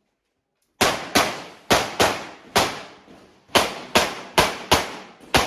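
Pistol fired in rapid strings during a practical shooting stage: ten sharp shots, four in quick pairs, then a pause of about a second, then six more in quick succession.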